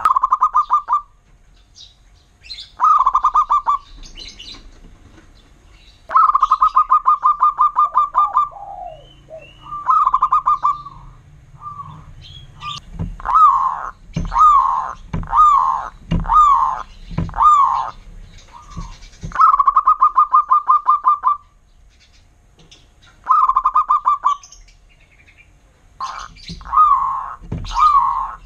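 Zebra dove (perkutut) cooing: rapid stuttering trills of about one to two seconds, repeated with short pauses. In the middle comes a run of single falling coos, about one a second. Fainter higher chirps sound over the song.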